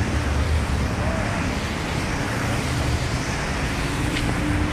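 Steady street traffic noise on a rain-wet road: a low rumble with a hiss of tyres over it.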